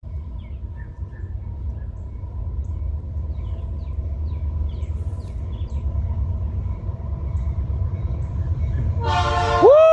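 Diesel freight locomotive rumbling steadily as it approaches, then, about nine seconds in, its five-chime Nathan P5 air horn sounds loudly: a chord of several tones that swells and bends up in pitch, starting to fall at the very end.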